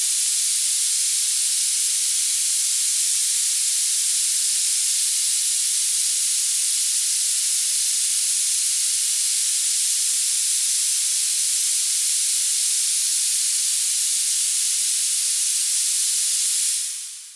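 Steady, high-pitched hiss of filtered noise played as a tinnitus masking sound, with nothing in the bass. It fades out in the last second or so.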